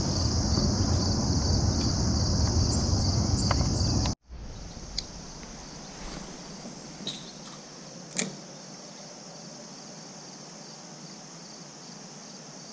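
Insect chorus, crickets trilling steadily and high, over a low rumble. About four seconds in it cuts off suddenly to a much quieter stretch where the trill is fainter, broken by a few light taps.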